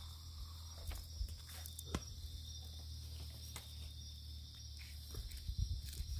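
Steady high chirring of night insects, with scattered small clicks and knocks and a low steady hum underneath.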